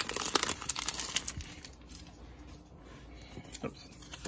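Foil wrapper of a Pokémon card booster pack crinkling and tearing as it is pulled open by hand. The dense crackle lasts about a second and a half, then turns quieter with a couple of soft clicks as the cards are handled.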